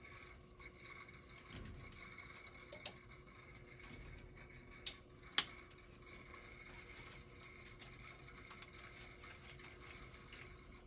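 Quiet handling sounds of electrical wiring work: a few short, sharp clicks from needle-nose pliers and wire nuts on the zone-valve wires, the loudest about five and a half seconds in, over a faint steady hum.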